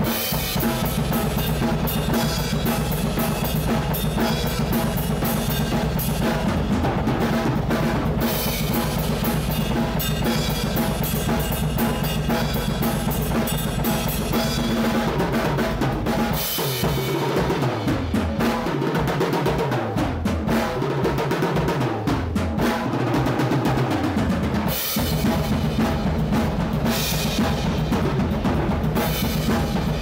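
Instrumental music: a drum kit with bass drum and snare plays throughout over a low steady drone. For several seconds past the middle the drone drops out and low notes slide up and down, then the drone comes back.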